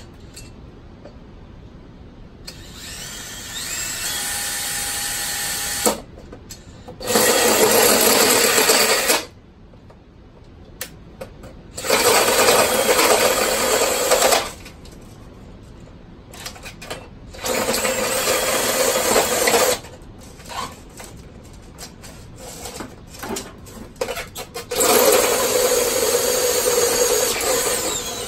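Cordless drill with a 4-inch bit boring into white PVC pipe, running in four bursts of two to three seconds with pauses between.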